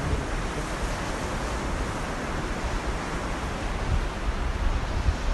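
Ocean surf breaking and washing up a flat sandy beach, a steady rush, with wind rumbling on the microphone.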